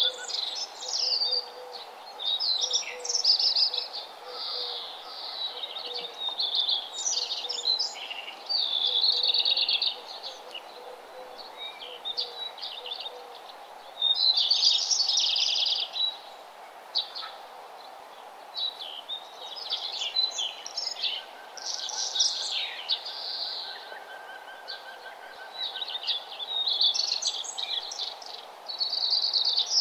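Birdsong: many bright chirping and trilling phrases from small birds, coming in clusters with short pauses, over a steady faint background hum.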